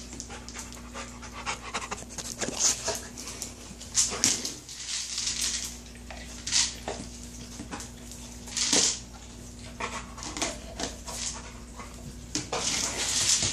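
Dog panting and sniffing as it noses and paws a Kong Wobbler, a weighted hard-plastic treat toy, across a hard floor. The toy knocks and tips with kibble rattling inside, in irregular bursts.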